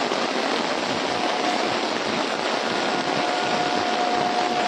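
Heavy downpour: a steady, even hiss of torrential rain.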